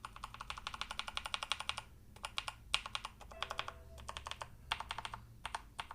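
Mechanical keyboard with freshly lubed switches being typed on as a sound test: a fast run of keystrokes for about two seconds, then scattered keypresses in short groups. Its sound is heard as rich and butter-smooth.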